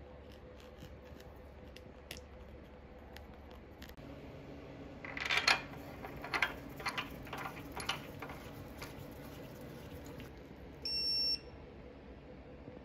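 A run of sharp metallic clicks and clanks as the socket and crank-holding tool are fitted to the crank bolt, then a short electronic beep from a digital torque wrench near the end.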